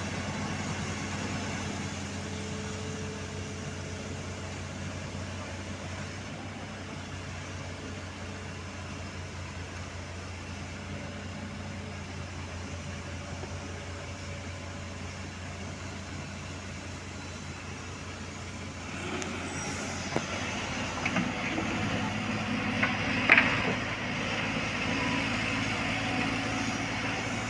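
Heavy vehicle's diesel engine running steadily. It grows louder about two-thirds of the way through, with a single sharp knock a few seconds later.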